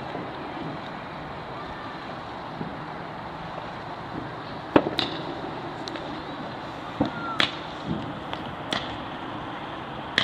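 Fireworks going off in the distance: scattered sharp bangs, the loudest about five seconds in and several more over the following few seconds, over a steady background hiss.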